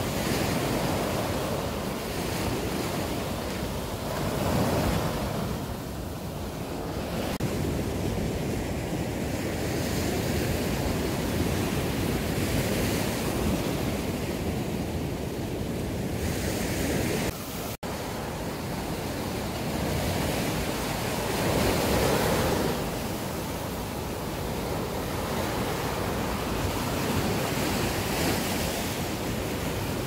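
Small waves breaking and washing up over a sandy beach in a steady surf, swelling louder twice as bigger waves come in. The sound cuts out for an instant a little past halfway.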